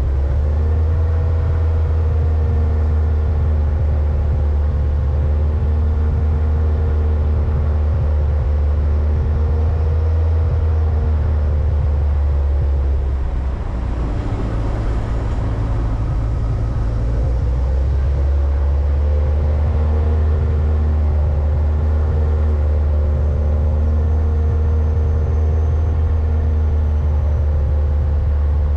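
Vehicle engine running steadily under a strong low rumble of road noise while climbing a mountain road. The engine note blurs and shifts for a few seconds about halfway, then settles back to a steady drone.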